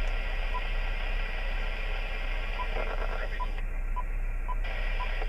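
Ham radio transceiver's speaker giving a steady static hiss from an empty band, with no stations coming through: band conditions are poor. About seven short beeps from the radio sound at uneven intervals as its buttons are pressed.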